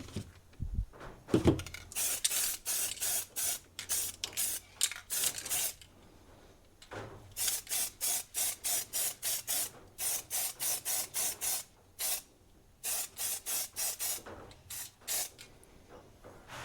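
Aerosol can of satin black spray paint sprayed in quick short bursts, two to three a second, with a couple of brief pauses.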